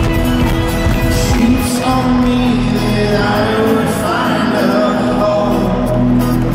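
Loud live folk-rock band music heard from within an arena audience, with banjo and upright bass in the line-up.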